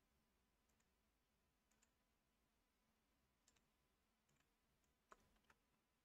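Near silence with about half a dozen faint computer mouse clicks, some in quick pairs, the loudest about five seconds in.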